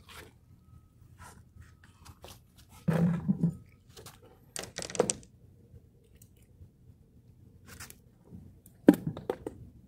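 Close handling noises from a fisherman working his rod, line and catch: a loud rustle and bump about three seconds in, a run of scraping clicks around five seconds, and a sharp knock near the end, with scattered small clicks between.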